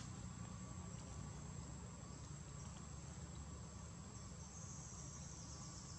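Insects trilling steadily in the trees, a thin high whine, with a second pulsing trill joining about four seconds in, over a low steady rumble.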